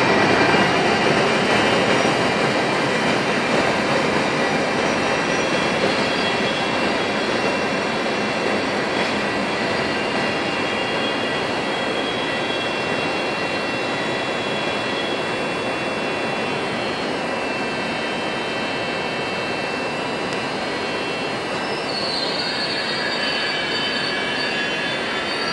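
Trenitalia E464 electric locomotive at the rear of a regional train rolling in and coming to a stop, with high steady squealing of wheels and brakes over the running noise. The noise eases off over the first ten seconds and then holds steady, and a higher squeal sets in near the end.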